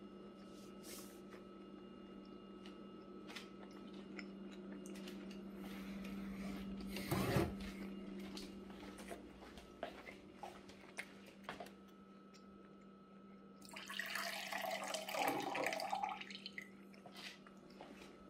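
Quiet eating sounds: chewing a bite of tough, chewy beef, with scattered light clicks of cutlery against a plate, over a steady low hum. There is a brief louder noise about seven seconds in, and a louder noisy stretch of about two seconds near the end.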